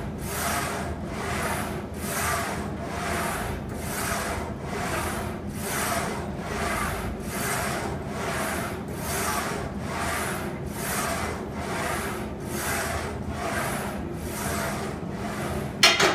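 Smith machine bar carriage sliding up and down its guide rails during upright rows, a steady rhythm of rasping strokes roughly three every two seconds. Near the end there is one sharp metal clank as the bar is hooked back onto the rack.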